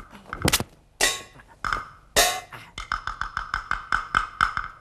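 Traditional Chinese stage percussion: a few sharp clapper strikes, two crashing cymbal hits about one and two seconds in, then a fast, even run of light ringing strokes.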